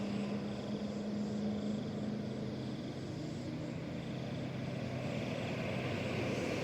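Road vehicle engine running with a steady low drone, growing slightly louder near the end.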